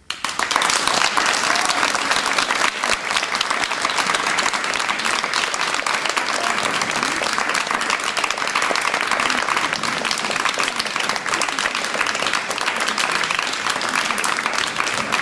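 Audience applauding: a dense clapping that breaks out suddenly and keeps up steadily.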